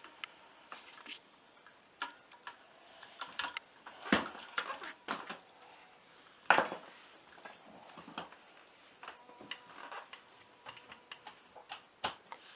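Scattered clicks and light metallic clinks of tools and parts being handled, with two louder knocks about four and six and a half seconds in.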